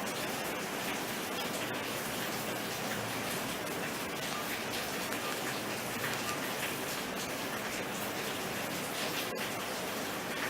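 Steady, even hiss of background noise with a few faint ticks.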